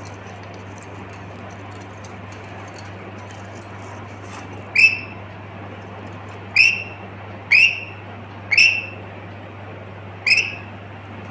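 Pet lory parrot giving five short, loud, shrill calls, the first about halfway through and the rest spaced roughly a second apart, over a steady background hum.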